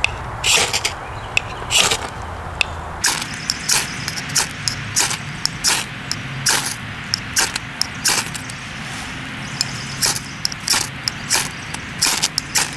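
Ferro rod struck again and again with the spine of a knife, each a short sharp scrape, about one or two a second, showering sparks onto tinder that is not catching.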